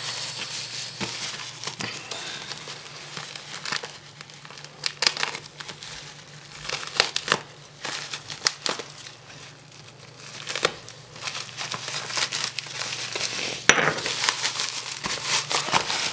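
Bubble wrap and plastic packaging crinkling and crackling irregularly as it is pulled apart and unwrapped by hand, with short louder bursts of crumpling and sharp crackles.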